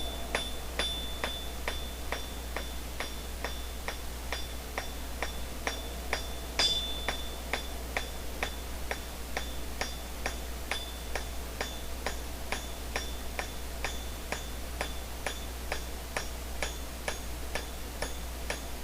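Rounding hammer striking hot round bar on an anvil in a steady rhythm of about two blows a second, each blow ringing, as the blacksmith thins one edge of the bar for a flare scroll. One heavier blow lands about six and a half seconds in, over a steady low hum.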